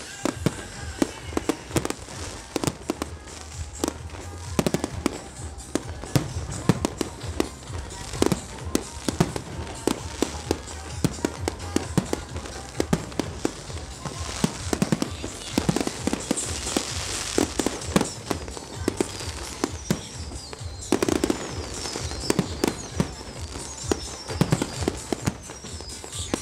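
Aerial fireworks display: shells bursting in a rapid, uneven string of bangs, with a denser, hissier stretch around the middle.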